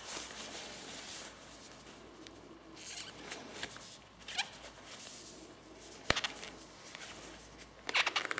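A plastic trim tool scraping and prodding as the edge of a new leather gear gaiter is tucked into its plastic frame, with the leather rustling, one sharp click about six seconds in and a quick burst of clicks near the end.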